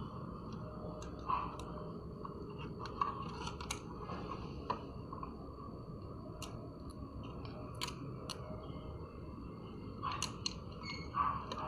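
Hand work on amplifier wiring: scattered small clicks and snips of tools and cables being handled, over a faint steady hiss with a thin high whine.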